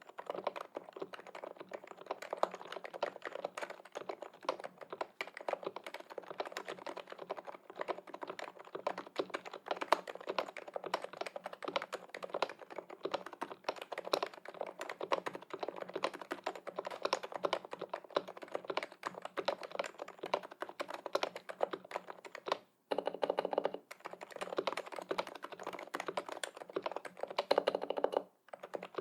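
Continuous fast typing on a Topre keyboard: a Noxary XRF case with steel top-mount plate, no foam, and Realforce 86U electro-capacitive internals with lubed housings, silencing rings and 45 g domes. A dense run of muted keystrokes, broken by two very short pauses near the end.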